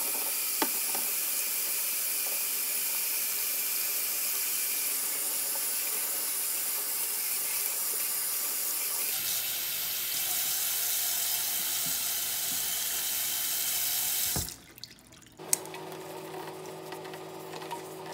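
Kitchen faucet running a stream of water into a stainless steel sink as sunglasses are rinsed under it. The water shuts off about three-quarters of the way through, followed by a sharp click and a quieter steady hum.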